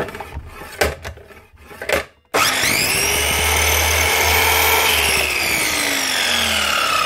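A few knocks as the saw head is handled, then a small Einhell mitre saw's electric motor and blade start abruptly a bit over two seconds in, with a whine that climbs quickly to speed. From about five seconds in the pitch falls steadily as the blade winds down. This is the saw test-run after repair, its blade now clamped and spinning.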